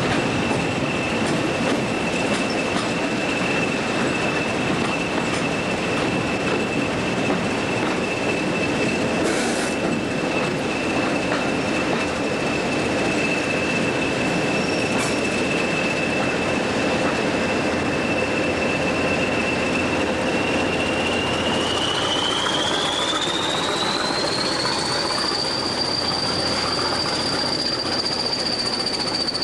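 Steady running noise of a slow-moving train, heard through an open cab window. A thin high whine sits over it and climbs smoothly to a higher pitch about three-quarters of the way through, then holds steady.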